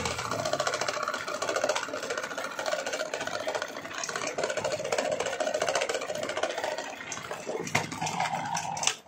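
Standing electric fan running with a single-blade propeller, the unbalanced blade shaking the whole fan into a fast, continuous rattle. Near the end the fan topples onto the tiled floor with a few knocks, and the rattle cuts off abruptly.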